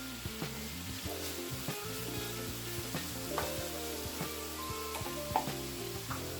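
Food frying in a skillet: a steady sizzle, with scattered short clicks from a utensil stirring and turning it.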